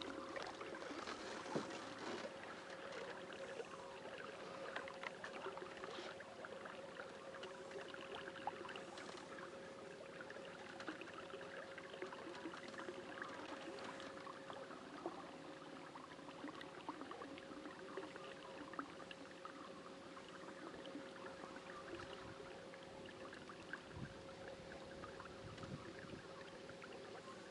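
A kayak being paddled: faint splashing and dripping of the paddle blade in the water, with a thin steady hum underneath.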